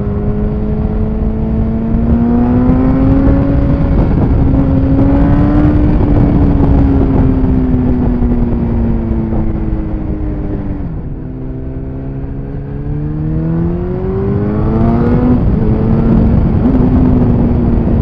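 Yamaha FZ8's 779 cc inline-four running through a MIVV Strom GP slip-on exhaust with its baffle removed, under way. The revs climb through the first few seconds and hold, fall sharply about eleven seconds in, then climb again to a gear change about fifteen seconds in, with wind noise throughout.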